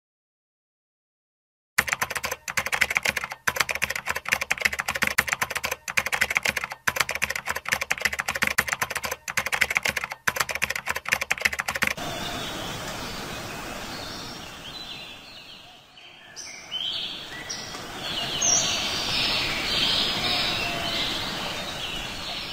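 Nearly two seconds of silence, then about ten seconds of dense, rapid crackling clicks with brief dropouts, which stop abruptly. A steady outdoor hiss follows, with birds chirping from about the middle onward.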